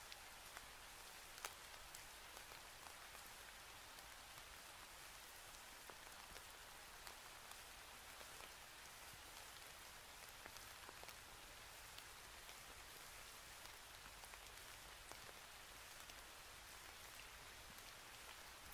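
Near silence: a faint steady hiss with scattered soft ticks, one slightly louder about a second and a half in.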